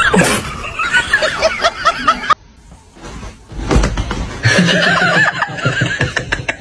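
A person laughing in quick, pitched bursts, cut off abruptly about two seconds in. After a short lull comes a low thump, then more laughing.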